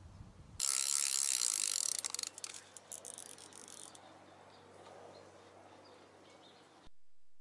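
Spinning fishing reel being worked on a feeder rod: a loud mechanical whirring starts suddenly about half a second in, lasts about a second and a half, then trails off into softer clicks and rattles.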